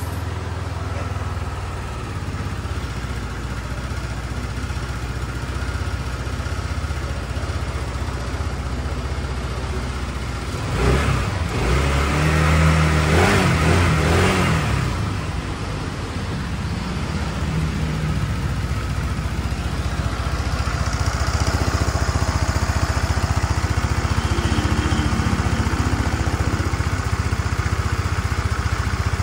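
Kymco Racing 150 scooter's single-cylinder four-stroke engine idling steadily, revved up and back down once about halfway through, then held at a slightly higher, louder speed near the end.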